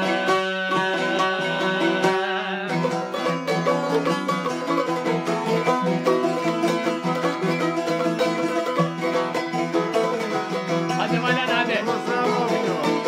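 Albanian folk song played on plucked string instruments: rapid picked notes over steady held tones, growing busier about two and a half seconds in.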